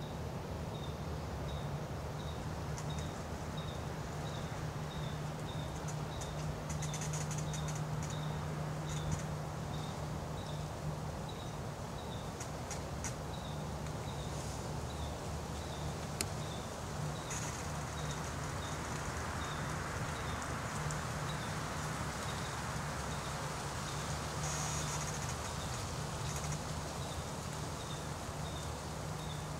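Outdoor woodland ambience: a steady low hum under a faint, short high chirp repeating about every two-thirds of a second, with a few brief rustles.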